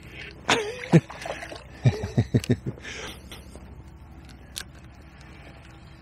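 Hooked fish thrashing and splashing at the surface as it is played to the bank: two sharp splashes about half a second in, then a quick run of about five short splashes around two seconds in.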